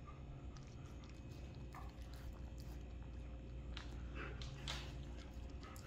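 A Siberian husky licking food off a silicone lick mat: a few short, irregular licks, more of them near the end.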